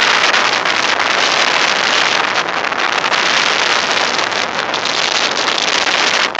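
Strong coastal wind blowing over the microphone, a loud steady hiss that mixes in the sand streaming along the beach.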